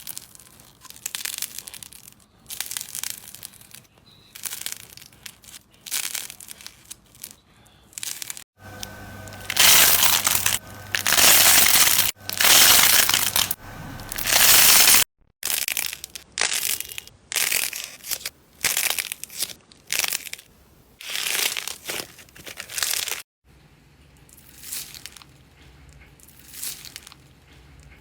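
Hands squeezing, pressing and pulling slime, giving a series of crackling, crunchy squishes about once a second. They turn louder and more continuous for a few seconds in the middle and quieter near the end.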